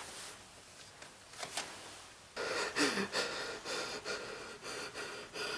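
A few faint clicks of a plastic CD jewel case being taken from a shelf and handled, then a person breathing audibly through the mouth from about two and a half seconds in.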